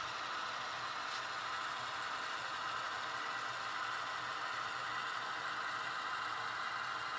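HO scale model diesel locomotives running along the layout's track: a steady mechanical whir and rattle from their motors, gears and wheels.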